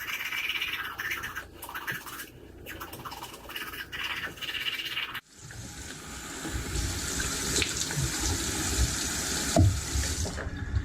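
Rapid scratchy brushing strokes for about five seconds, then, after an abrupt cut, a steady rush of running tap water.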